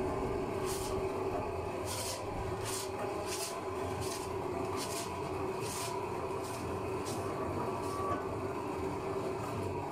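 Bakery dough mixer running, its motor humming steadily as the hook kneads a large batch of barbari dough in the stainless-steel bowl, with a rhythmic swishing repeating a little faster than once a second.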